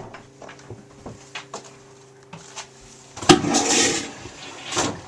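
The yacht's water pump running with a steady low hum, interrupted about three seconds in by a loud rushing noise lasting under a second, and a shorter one near the end.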